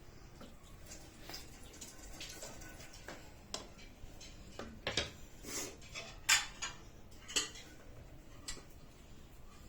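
Scattered clinks and knocks of kitchenware being handled, with the loudest few between about five and seven and a half seconds in.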